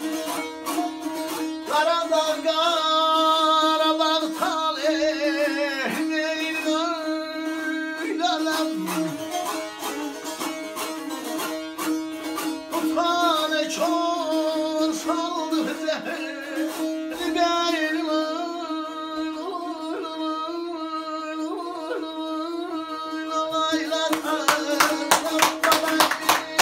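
Azerbaijani saz strummed fast over a steady open-string drone, with a man singing a long, wavering ashiq vocal line in Azerbaijani. Near the end the strumming grows louder and sharper.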